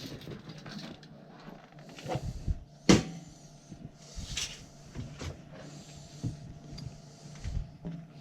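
Work noises over a steady low hum: scattered knocks and clatter, and short noisy rushes, with one loud knock about three seconds in.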